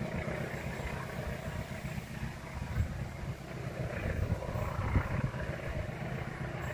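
Distant diesel locomotive hauling a ballast train, approaching: a low, uneven rumble.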